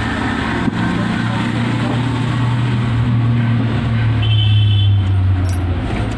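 Motor traffic with a vehicle engine running as a steady low hum, its pitch shifting about a second in and again near the end, with voices in the background.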